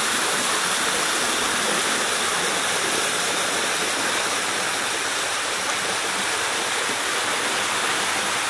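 Steady rush of falling water, an even hiss that does not change.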